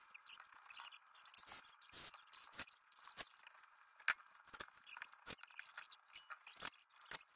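Faint, irregular clicks and taps of small items being handled on a wooden tabletop, the sharpest about four seconds in.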